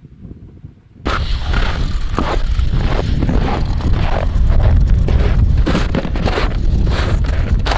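Footsteps crunching through snow on lake ice, about two steps a second, with wind rumbling on the microphone. It starts suddenly about a second in.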